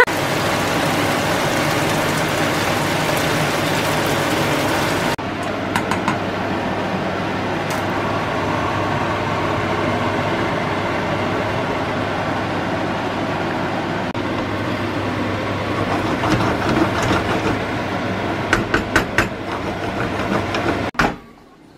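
Food frying in a wok and pasta boiling in a pot on a gas hob, a steady sizzling rush over a low hum. Near the end a wooden spoon knocks and scrapes in the pan a few times, then the sound cuts off abruptly.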